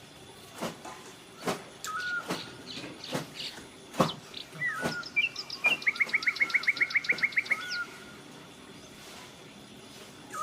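Bulbul calling: short whistled notes repeated every couple of seconds, with a fast chattering run of notes lasting about two seconds in the middle. Sharp clicks stand out among the calls.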